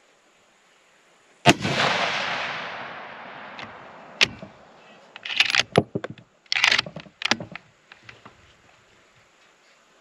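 A 6.5 Creedmoor bolt-action rifle fires one shot about a second and a half in, its report rolling away over the next couple of seconds. Then comes a single click and a quick run of metallic clicks and clacks as the bolt is cycled for the next round.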